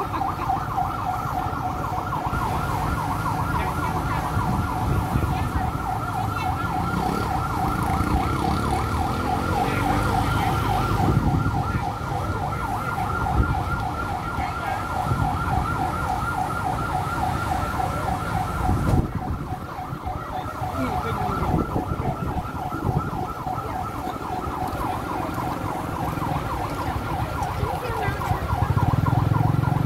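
Fire truck siren sounding a rapid, unbroken warble, over a low engine rumble.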